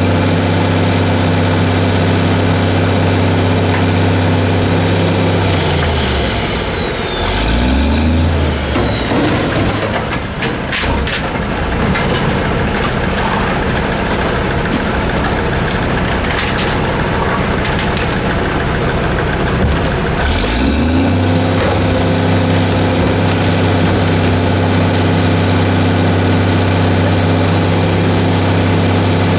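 A 1982 American LaFrance CTC garbage truck's engine runs steadily while its Heil Formula 7000 automated side-loader arm lifts and dumps a cart. The engine note falls away about six seconds in, sharp clanks and knocks come as the cart is tipped, and the note rises back to steady about twenty seconds in.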